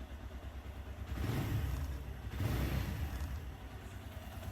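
Suzuki GS 150's single-cylinder four-stroke engine running, revved up briefly twice, about a second in and again near the middle. Only a light tappet tick remains, with no timing-chain rattle, after the chain tensioner adjustment.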